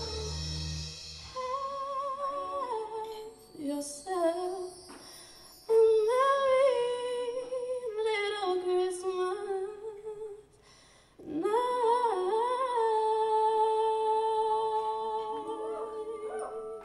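Solo female voice singing into a microphone, largely unaccompanied: long held notes with vibrato and gliding runs, sung in two long phrases with a short breath between them near the middle. A low backing sound drops out about a second in.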